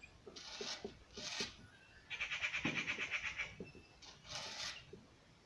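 Marker pen squeaking and rubbing across a whiteboard in a few short strokes, with one longer, louder stretch of squeaking starting about two seconds in.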